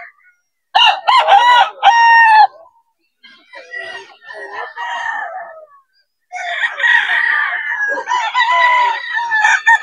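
Gamefowl roosters crowing: a loud crow about a second in, fainter crows from farther off in the middle, then several roosters crowing over one another through the last few seconds.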